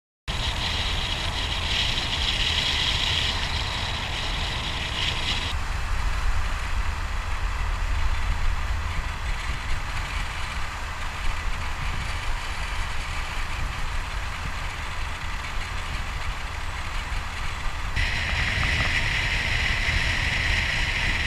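Motorboat under way: steady engine and wind rumble on the boat-mounted camera's microphone. A brighter hiss is heard for the first five seconds, stops abruptly, and comes back for the last few seconds.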